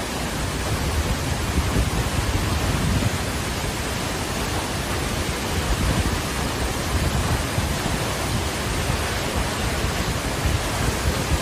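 Tall waterfall plunging down a cliff into a pool: a steady, unbroken rush of falling water.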